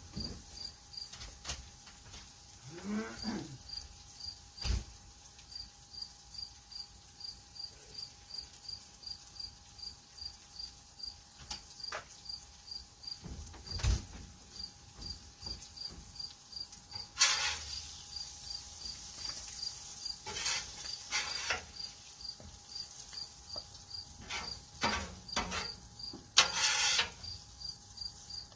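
A cricket chirping steadily in a regular high pulse, about two to three chirps a second. Over it come a few sharp knocks and, in the second half, several louder harsh scraping-like bursts.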